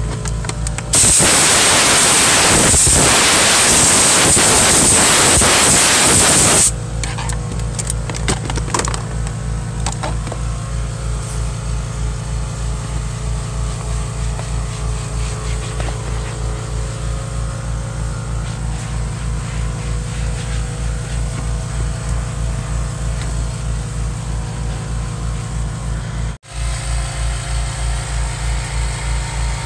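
A loud, steady hiss of spray or air blast starts about a second in and cuts off sharply some six seconds later. Under it, a running motor gives a low hum that pulses two or three times a second.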